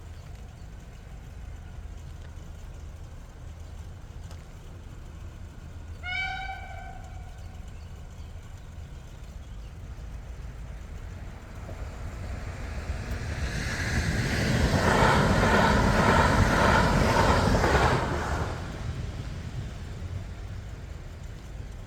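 A train sounds one short horn toot about six seconds in. Several seconds later the train approaches and passes over the level crossing, loudest for about four seconds with a rhythmic clatter of wheels on the rails, then fades away.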